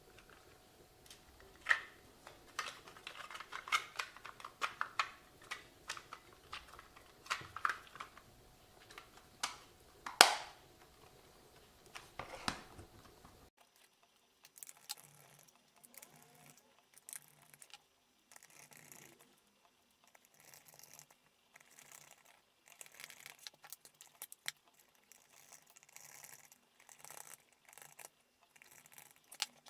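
Small plastic clicks, taps and rustles from handling a WLToys 144001 RC transmitter as its case is closed up around the rerouted antenna cable. One sharper click about ten seconds in; fainter, sparser handling sounds in the second half.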